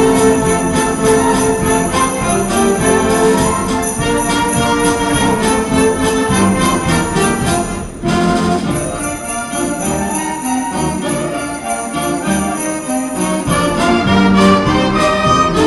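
High school concert band playing, with flutes and clarinets carrying the tune and sleigh bells jingling steadily above them.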